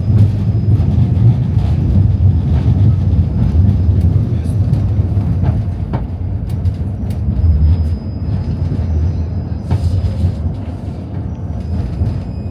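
Tram running along its rails, heard from inside the car: a steady low rumble with scattered clicks and rattles.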